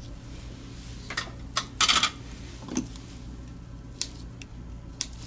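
Scattered light clicks and clinks of small tools and mouse parts being handled at the repair bench, the loudest a short clatter about two seconds in, over a steady low hum.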